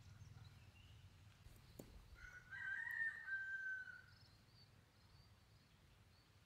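A rooster crowing once, a single drawn-out call starting about two seconds in and lasting about a second and a half, over a faint low rumble.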